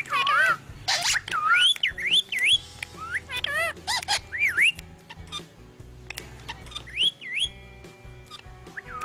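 Parrot whistling: a run of quick up-and-down whistled sweeps, crowded together through the first half and returning as a pair of rising whistles near the end.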